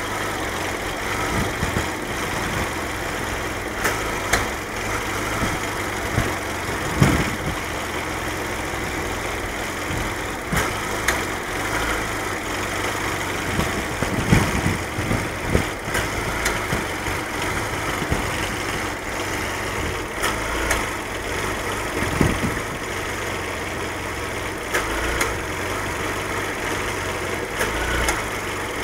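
1995 Pontiac Sunfire's four-cylinder engine idling roughly, coughing with a sharp stumble every few seconds at irregular intervals. It is an engine fault that the owner is having repaired by opening up the cylinder head.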